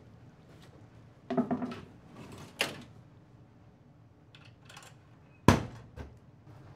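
Changing-room locker being handled: a short rattle and a sharp click of the locker and its lock, then a locker door slammed shut about five and a half seconds in, the loudest sound, followed by a smaller knock.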